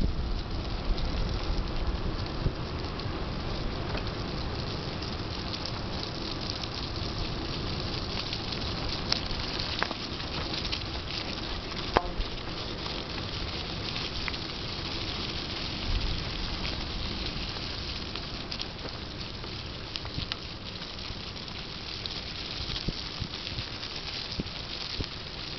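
Mountain bike tyres rolling over dry fallen leaves and a dirt path: a steady rustling hiss scattered with small clicks, with a few sharper knocks from the bike jolting over bumps, one about twelve seconds in.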